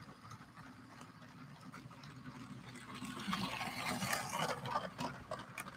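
LEGO 60197 passenger train running on plastic track, its Powered Up motor whirring and its wheels rattling with small clicks over the track. The sound grows louder from about two seconds in, then fades near the end.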